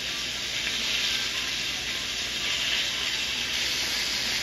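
Food frying in a pan, with a steady sizzle.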